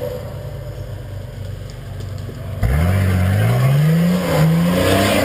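Off-road competition 4x4's engine running at low revs under load on a steep dirt climb, then revved hard about two and a half seconds in, its pitch climbing, dipping briefly and climbing again.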